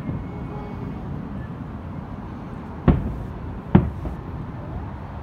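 Distant fireworks shells bursting: two sharp booms a little under a second apart, about three seconds in, over a steady low rumble.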